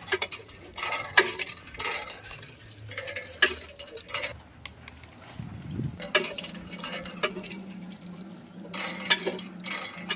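Miniature hand-pump model being worked by hand, its handle clicking and knocking in irregular strokes. About halfway a small electric water pump starts with a brief rising whine and then hums steadily while water pours from the spout into the clay trough.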